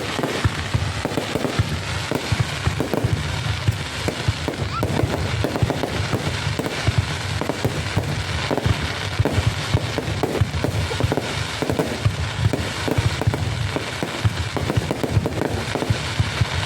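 Fireworks going off: a dense, continuous run of sharp cracks and pops with no let-up.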